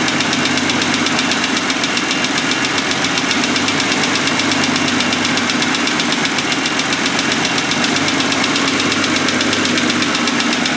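Car engine idling with a rapid, steady ticking knock that sounds like a lifter tick but comes from a piston; the noise does not change when that cylinder is shorted out.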